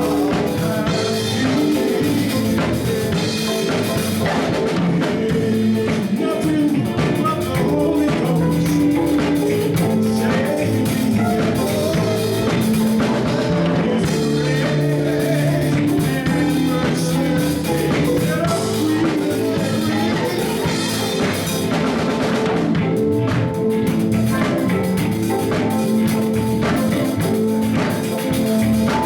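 Band music with a drum kit, guitar and singing, a steady beat throughout.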